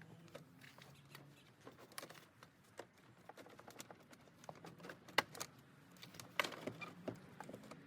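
Sporadic light clicks and knocks of a radiator being handled and worked into place in a car's engine bay, sharpest about five seconds in and again just after six seconds.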